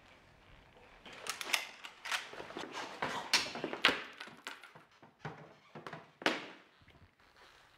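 A quick, irregular run of sharp swishes and clacks, about a dozen over some five seconds, like martial-arts weapon swings and strikes added to a film fight. The last and longest swish comes about six seconds in.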